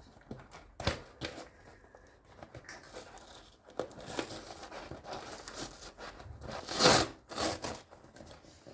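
Paper or plastic bag crinkling and tearing as it is handled, with irregular rustles and clicks and one louder tear about seven seconds in.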